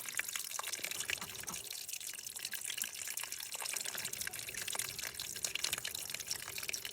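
Water from a small waterfall splashing and trickling steadily, full of little drips and splashes.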